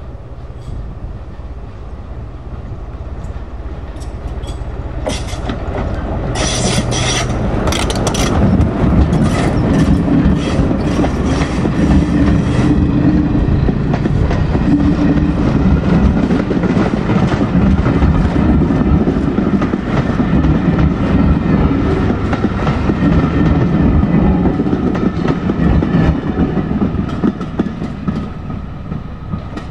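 British Rail Class 14 diesel-hydraulic locomotive, with its Paxman Ventura diesel engine running, approaches and passes hauling coaches. As the locomotive passes, about six to eight seconds in, there is a short spell of sharp high-pitched wheel squeal and clicks. The coaches then roll by with a steady rumble and wheels clattering over the rail joints, and the sound fades near the end.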